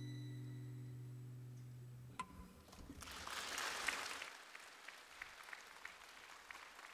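Classical guitar's last chord ringing out and fading, stopped with a click about two seconds in. Audience applause breaks out about a second later, swells, then thins into scattered claps.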